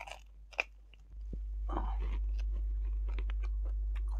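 Wet, open-mouthed chewing of a hand-fed mouthful of meat and rice, with many short smacks and clicks of lips and teeth. A low steady hum comes in about a second in and holds.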